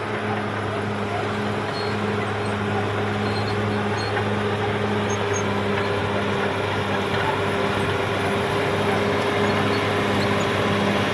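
Caterpillar D6R XL bulldozer's diesel engine running steadily under work, with a constant low drone and a dense mechanical noise, getting a little louder toward the end.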